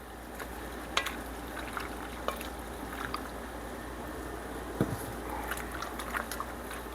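Chicken broth being poured into a pan of simmering pasta, a steady liquid sound with a few light clicks.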